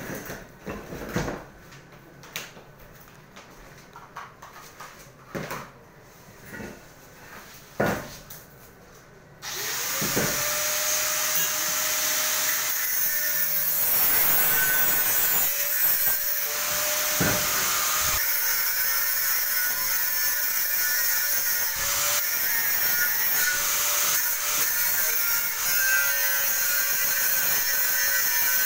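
A few scattered knocks and taps, then about ten seconds in a handheld electric power tool spins up with a rising whine and runs loud and steady for the rest, its pitch sagging slightly now and then as it cuts.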